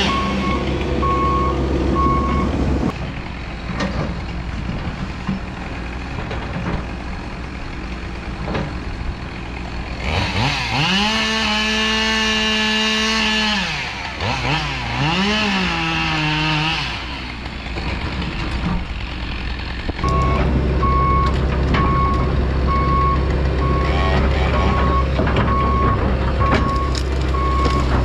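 Excavator engine running with its alarm beeping steadily, for the first few seconds and again from about two-thirds of the way through. In between, a chainsaw revs up, holds at full throttle for a few seconds while bucking a log, then drops and revs again before stopping.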